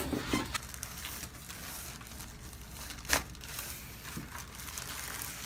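Crinkling, rustling handling noise, with one sharp click about three seconds in.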